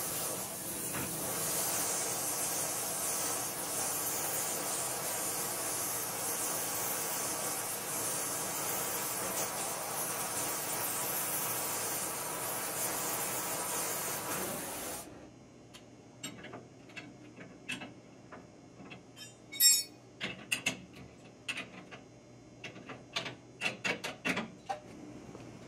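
Oxyfuel cutting torch hissing steadily as it cuts through a pipe, cutting off suddenly a little past halfway. After it, a scatter of sharp clicks and knocks as the pipe is handled, with one louder knock in the middle.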